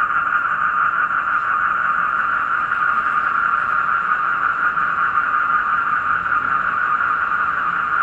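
A dense chorus of black-spectacled toads (Asian common toads) calling together, their calls merged into one loud, steady sound, with crickets chirping faintly and higher above it.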